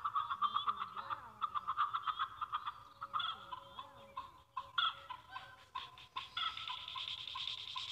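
Chickens clucking in quick runs of short calls.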